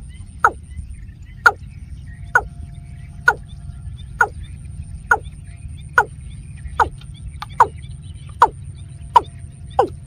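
Watercock calling: a loud, short note that slides downward, repeated about once a second and coming a little faster near the end.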